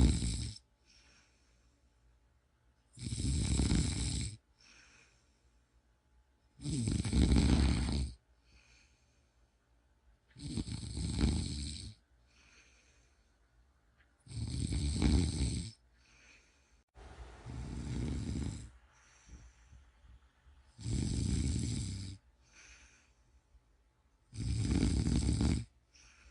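A person snoring in a slow, regular rhythm, one loud rasping snore about every three and a half to four seconds, each followed by a soft, brief breath. One snore a little past the middle is breathier and weaker than the rest.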